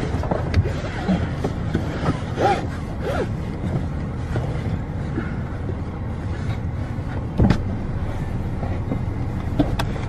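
Steady low rumble of a car's engine and road noise heard inside the cabin, with faint indistinct voices early on and a couple of sharp knocks in the second half.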